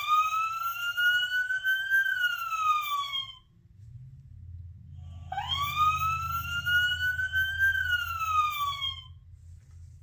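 A sound book's small speaker playing a recorded police car siren: two wails, each rising and then falling over about three and a half seconds, the second starting about five seconds in.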